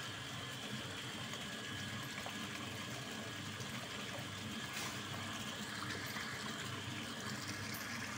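Soy milk pouring and splashing steadily as it drains from the motor-driven cloth filter of an automatic tofu sieve into a tub, over a steady low hum from the electric drive motor.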